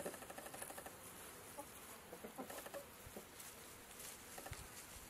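Domestic chickens clucking faintly in short runs of quick pulses, once at the start and again about two and a half seconds in.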